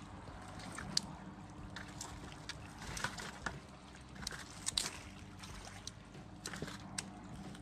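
Sheepshead being picked up off a shell-strewn beach and dropped into a plastic bucket of fish: a scattering of sharp knocks and slaps as fish land against the bucket and each other, over a steady low hum.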